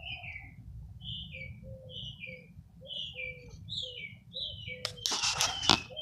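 A bird singing, repeating a short downward-slurred chirp about once a second. About five seconds in comes a brief loud clatter.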